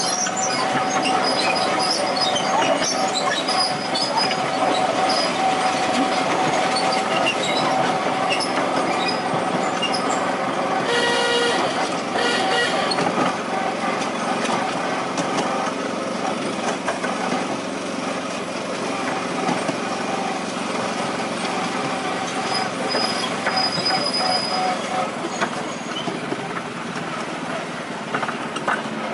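A 7¼-inch gauge miniature railway train running along the track: steady wheel-and-rail running noise with a steady whine. Its horn gives a short toot about eleven seconds in.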